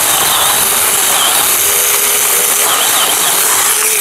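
Battery-powered 4-inch mini chainsaw running steadily while cutting through wood. Its motor whine wavers slightly in pitch as the chain bites.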